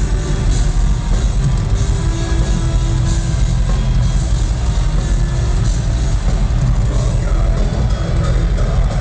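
Loud electronic rock music with heavy bass and a steady beat, played back with the Voodoo sound fix enabled in loud mode.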